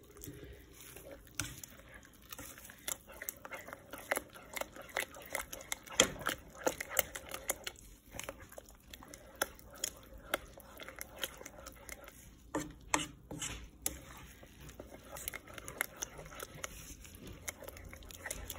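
A spoon stirring thick cream sauce with wilted spinach in a pot: wet squelching and irregular clicks of the utensil against the pot.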